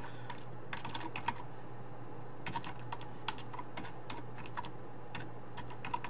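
Computer keyboard typing: irregular keystrokes in short runs as a shell command is typed.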